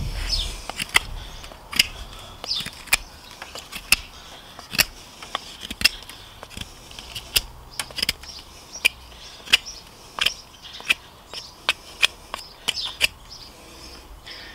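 Small S35VN stainless fixed-blade knife (ESEE Xancudo) carving a point on a green wooden stick: a string of short, sharp cutting clicks, irregular, about one or two a second, as each stroke bites through the wood.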